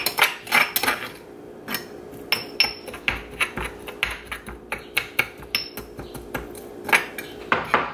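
Metal spoon scraping and clinking against a stone mortar, working through a freshly ground garlic and herb paste, in irregular taps and scrapes several times a second.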